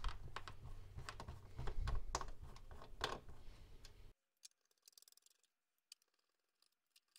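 Light scattered clicks and handling noise of a screwdriver undoing screws in an all-in-one computer's plastic back housing. About four seconds in, the sound cuts off to dead silence.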